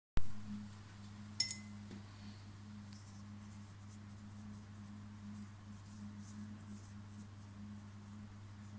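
Steady low electrical hum, with one short bright clink about a second and a half in. Faint soft scratching of a paintbrush laying paint on paper follows through the rest.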